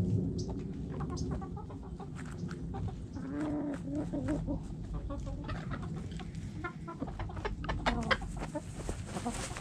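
Backyard chickens clucking, with a cluster of low clucks about three to five seconds in, while the flock scratches and pecks in loose dirt close by; a few sharp ticks come near the end.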